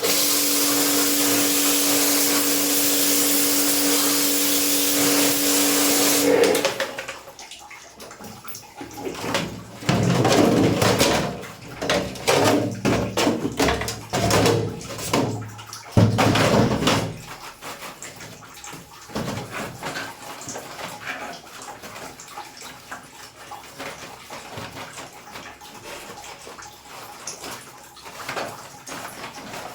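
A water spray jetting steadily over a steady pump-motor hum, as when an air conditioner is washed down with a small pressure washer. It cuts off sharply about six seconds in, followed by uneven bursts of sound and quieter splashing and dripping.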